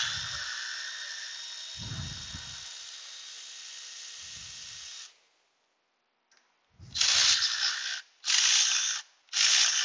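Milwaukee cordless ratchet running on an AC compressor mounting bolt: one long run of about five seconds that slowly fades, then after a pause three short trigger bursts near the end. The bolt is not turning loose.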